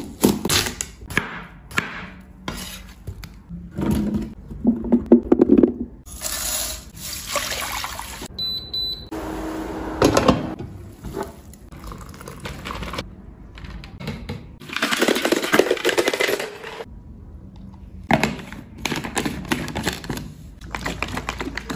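Kitchen sounds from fruit-tea making, cut one after another: a knife going into a whole watermelon, liquid pouring and splashing, a glass lid set on a pot, and a screw cap closed on a plastic drink jug.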